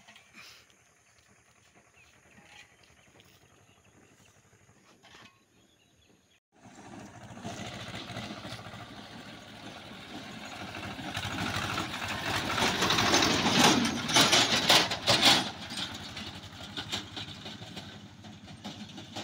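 A diesel tractor drives past on a road: the engine noise and clattering swell to a loud peak about two-thirds of the way through, then fade. Before it, a few seconds of faint background with a few light clicks.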